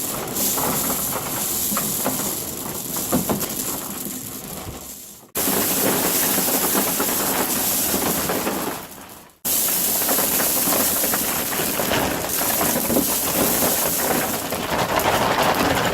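Crushed blue-metal gravel pouring out of a 20 kg bag into a container: a dense, steady rushing rattle of stones. It cuts off sharply about five seconds in and again about nine seconds in, each time starting again at once.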